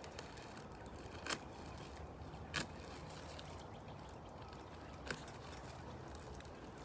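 Three short, sharp taps, about a second in, two and a half seconds in, and five seconds in, over a faint steady background hum.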